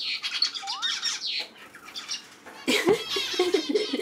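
Pet birds chirping with short high calls. About two and a half seconds in, a louder run of quick, uneven pulsing sound starts and carries on.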